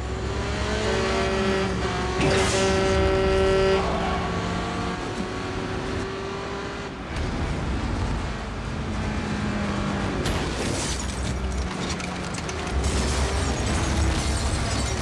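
Movie action soundtrack of a semi truck and cars running at highway speed, with a long held pitched horn-like tone in the first few seconds. Sharp cracks come in bursts in the last few seconds as a windshield is smashed.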